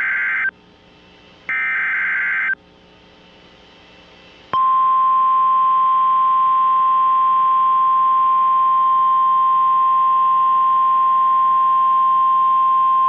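NOAA Weather Radio Emergency Alert System signal: the last SAME header data bursts, harsh digital buzzes about a second long with a second's gap between them, then about four and a half seconds in the steady 1050 Hz warning alarm tone starts and holds at one pitch, announcing a warning.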